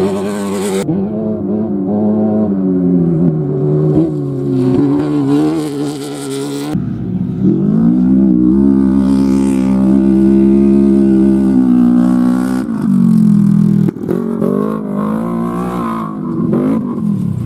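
Off-road race vehicle engines revving and accelerating, their pitch rising and falling with the throttle, in several short clips that cut abruptly from one to the next: about a second in, near seven seconds and near fourteen seconds. The middle stretch holds a long, steady high-rev pull that drops away near thirteen seconds.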